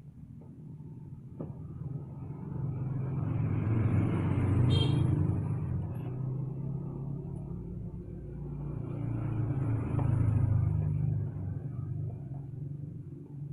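Motor vehicle sound that swells and fades twice, rising to a peak about four seconds in and again about ten seconds in.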